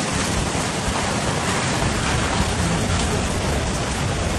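Heavy storm rain pouring down in a steady, dense rush.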